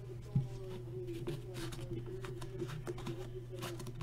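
Hands handling a cardboard trading-card box and the pack of hockey cards inside it: light rustling and tapping, with one thump about half a second in, over a steady low hum.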